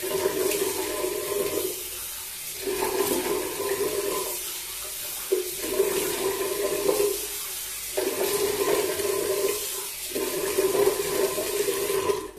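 Bathroom tap running into a sink as a face is rinsed after a shave. The flow is broken every two seconds or so as hands scoop and splash the water, and a hum in the running water comes and goes with it. The tap shuts off near the end.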